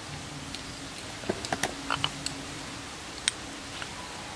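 Light clicks and taps of kitchen utensils being handled: a quick cluster of small knocks, then one sharper click about a second later, over a steady background hiss.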